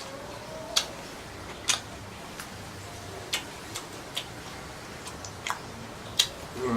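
Someone eating squid and shrimp: sharp, irregular clicking chewing smacks, about one every half second to second.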